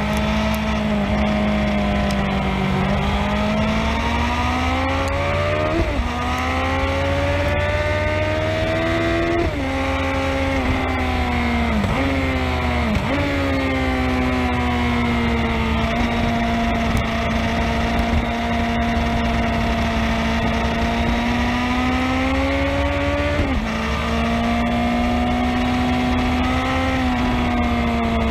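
Sport motorcycle's engine and exhaust at racing speed, its pitch climbing steadily under acceleration and dropping sharply at each gear change, several times.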